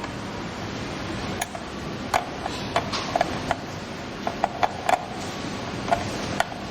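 Irregular light metallic clicks and taps of hands working a wire into a terminal connector, over a steady background hiss.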